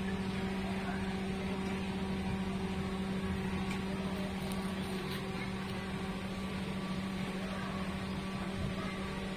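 A steady mechanical hum with a constant low tone, unchanging throughout.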